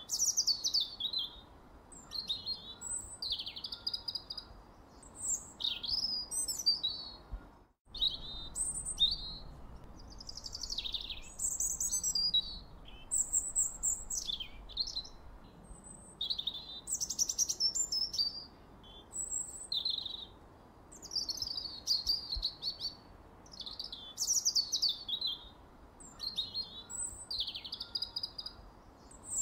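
Songbird singing a steady run of short, high phrases of chirps and whistled sweeps, one after another with short gaps. The sound drops out completely for a split second nearly eight seconds in.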